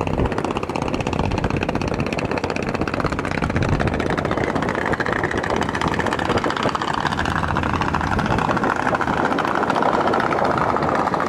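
Engine of a passing motor passenger ferry running, a loud, fast, steady pulse, with a tone in it that slowly drops in pitch over the second half.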